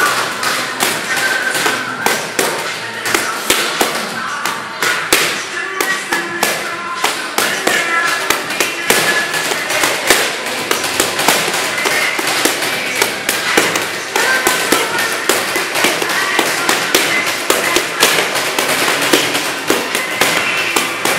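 Boxing gloves smacking into leather focus mitts in quick combinations, sharp slaps several a second, with music playing in the background.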